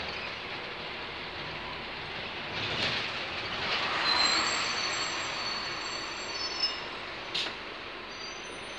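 Steady engine and road noise inside a moving double-decker bus, from the upper deck. It swells about four seconds in, with thin high squealing tones for a couple of seconds and a short sharp click near the end.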